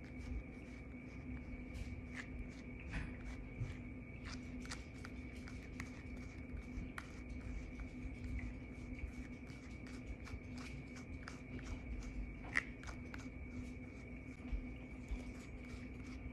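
A grooming brush stroking through a long-haired cat's fur, a quick, uneven run of soft scratchy strokes with one sharper click about twelve seconds in, over a steady faint hum.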